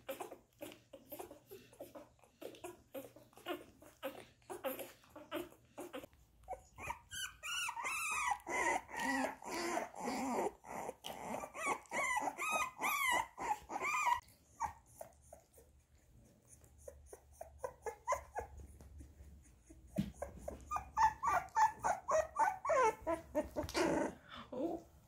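Litter of newborn puppies, a few days old, whimpering and squealing. Short squeaks come through the first few seconds, then stretches of high, wavering cries from about seven seconds in and again near the end.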